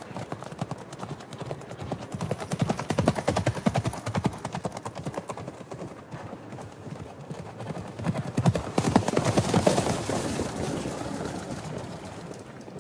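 Horse hooves galloping in a fast, dense run of hoofbeats that swells twice, about two to four seconds in and again about eight to ten seconds in, then fades toward the end.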